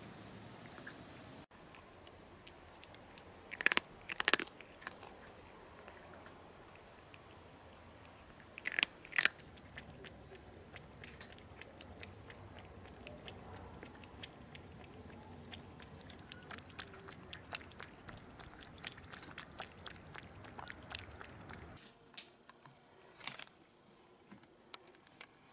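A cat crunching dry kibble from a bowl, a quick run of crisp crunches with a few louder, sharper cracks about four and nine seconds in. The crunching stops about 22 seconds in.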